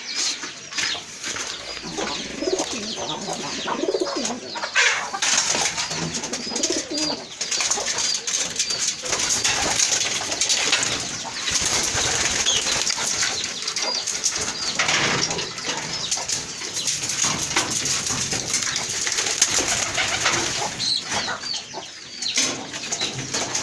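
Pigeons cooing in a loft, with wings flapping now and then and many short high chirps from other birds throughout.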